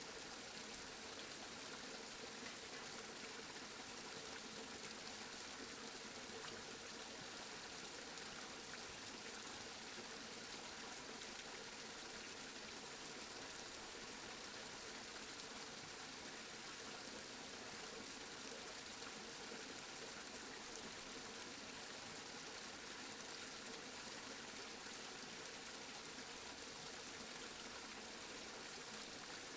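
Steady rain falling: an even hiss with a faint patter of drops, unchanging throughout.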